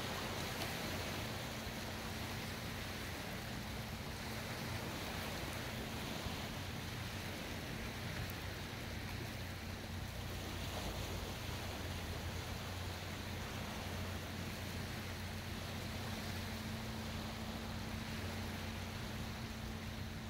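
Calm sea water washing and lapping in the shallows along a concrete seawall: an even, steady hiss with a low steady hum underneath.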